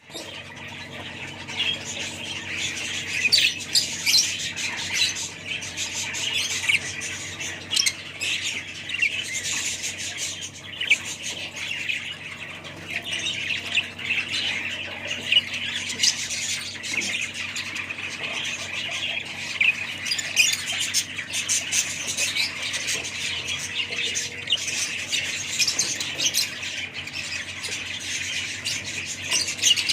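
A flock of budgerigars chattering and squawking without pause, many calls overlapping.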